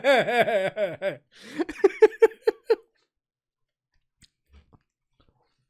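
A man laughing hard in quick repeated 'ha-ha' pulses, loud at first and then breaking into shorter giggles for about three seconds. After that it falls quiet except for a few faint mouth sounds as he bites into a burger.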